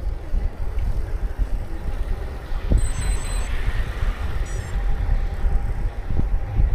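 Wind buffeting the microphone, a steady low rumble, with a few brief high-pitched tones about three seconds in.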